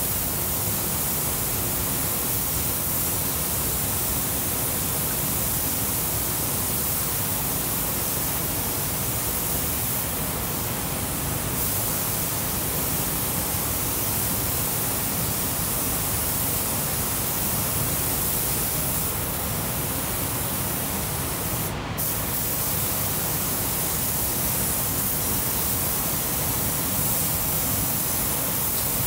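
Compressed-air paint spray gun hissing steadily as it sprays paint onto car body panels, with a very brief break in the hiss about 22 seconds in.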